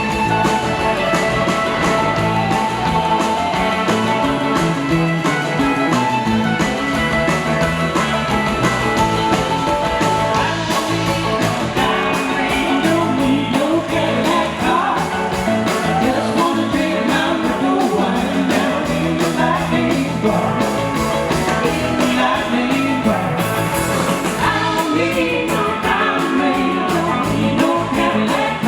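A live blues-rock band playing with guitar and drums on a steady beat. The first part is instrumental, and a singing voice carries the tune in the latter part.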